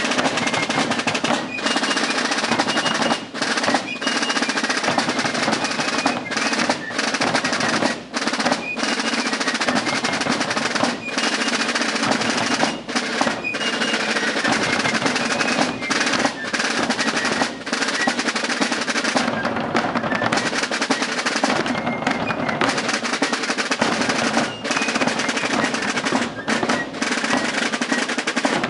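A fife and drum corps playing a tune together: fifes carry a shrill melody over rope-tension snare drums playing rolls and bass drums keeping the beat.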